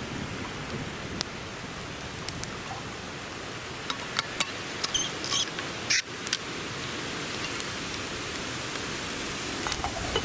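Zebra stainless steel billycan parts clinking and scraping as the nested set is unpacked. There are a few sharp metal knocks and brief high rings, the clearest about four to six seconds in and again near the end, over a steady background hiss.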